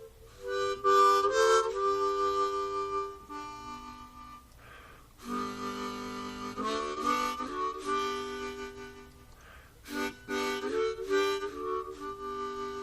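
Background harmonica music, slow phrases of held chords.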